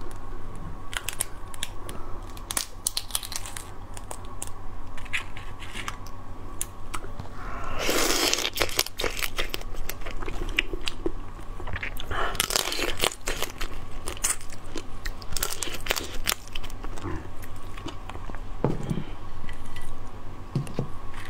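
Close-miked eating of shellfish: shells being cracked and torn apart, with crunching, biting and chewing. The loudest tearing crunches come about eight, twelve and fifteen seconds in, between smaller clicks.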